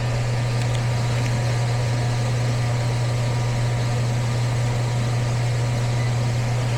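Air handler running with its electric heat strips energized: a steady low hum over even airflow noise, unchanging throughout.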